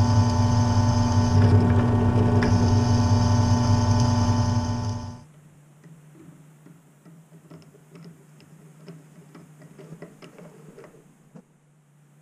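Drill press motor running steadily as the bit bores into a wooden block, cutting off suddenly about five seconds in. Then faint, irregular clicks as a hand tap is turned to thread the hole.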